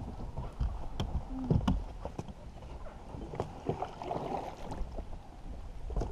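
Paddling a small boat through shallow water: water swishing and dripping off the paddle, with several sharp knocks against the hull.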